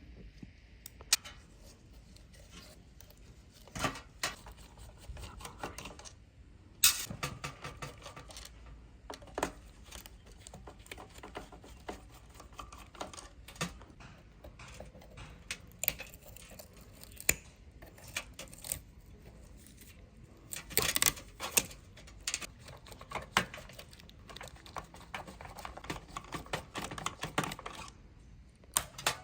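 Irregular light clicks, taps and small clatters of hard objects being handled, with a few louder knocks.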